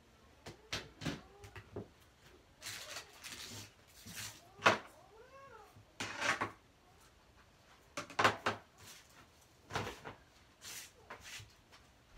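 A cat meowing twice in short rising-and-falling calls, among a scatter of sharp knocks and rustling; the loudest sound is a single sharp knock near the middle.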